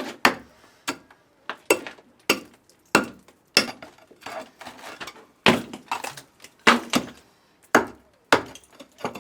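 A run of about fourteen sharp knocks and clinks, irregularly spaced, each with a short ring: hand tool and material strikes while building a form for a stone arch.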